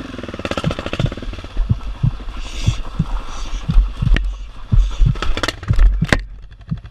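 BMW F650GS motorcycle riding a rough, wet dirt track: a low rumble with repeated thuds, two to three a second, as the bike jolts over the ruts.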